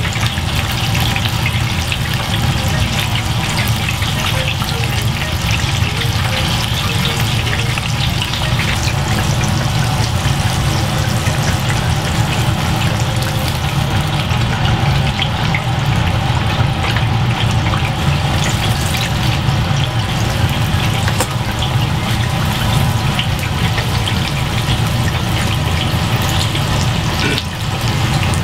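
Large chicken cutlet deep-frying in hot oil in a commercial fryer: a steady, dense sizzle and crackle.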